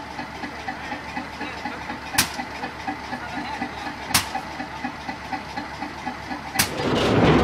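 Small 700 mm gauge diesel mine locomotive idling with a steady, even beat, with three sharp clicks spaced a couple of seconds apart. Near the end, a louder, noisier rumble takes over.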